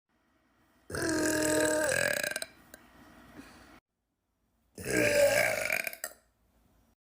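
A woman burping twice. The first long burp comes about a second in and holds a steady pitch, then trails off quietly. The second long burp comes near five seconds in.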